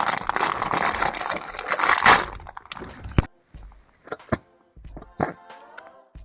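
Dense crackling, crunching noise for about three seconds, then quieter scattered clicks and a faint voice.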